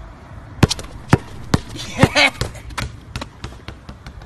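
A basketball dribbled hard and fast on concrete pavement: a quick, uneven run of sharp bounces starting a little over half a second in.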